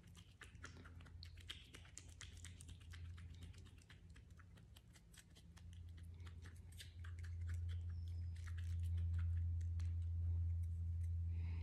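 Wet, coloured paper pulp being scooped from tubs and mixed in the palm of a hand, giving many small squishy clicks and scrapes. A steady low hum underneath grows louder about halfway through.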